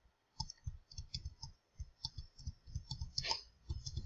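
Faint, irregular clicking from a computer mouse being clicked and its wheel scrolled to move through the slides, with a slightly louder click about three seconds in.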